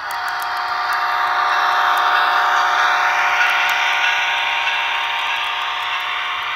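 HO scale model train running past at speed: the whir of its motor and wheels on the track, mixed with the steady engine sound from the locomotive's sound decoder. It swells about two seconds in as the train passes close, then eases slightly.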